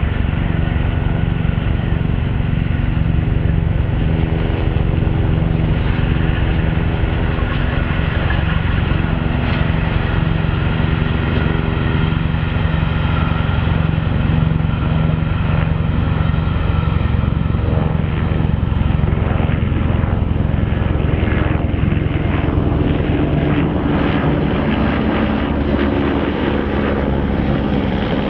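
Helicopters flying low alongside the railway, their rotors and engines running steadily and shifting in pitch partway through as they pass, over the rumble of the steam locomotive Flying Scotsman passing at speed with its train.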